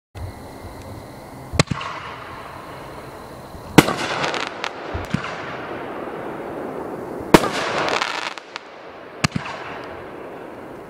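Alter Ego 3-inch finale repeater firework cake going off: four sharp bangs about two seconds apart, each followed by a fading hiss with a few smaller pops.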